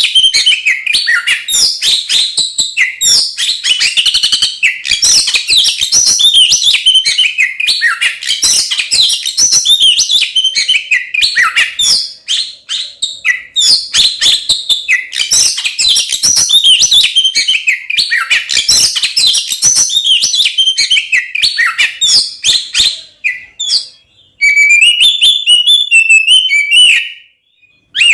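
Oriental magpie-robin (kacer) singing a loud, unbroken run of rapid chirps and whistled phrases: the agitated, fighting song used to provoke other male kacer into singing. Near the end it shifts to a quick, even trill that stops abruptly.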